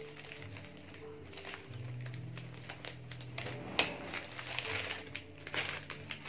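Bouquet wrapping paper crinkling and rustling as it is folded and handled, with one sharp crackle a little under four seconds in.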